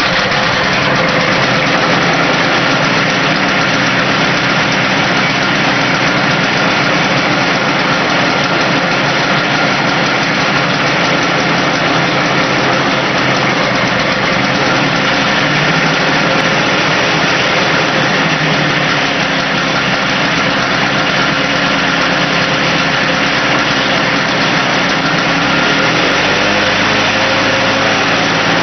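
Victa Silver Streak's 160cc two-stroke lawn mower engine running steadily, freshly started from cold with the throttle on the cold-start setting. Its low note shifts slightly near the end.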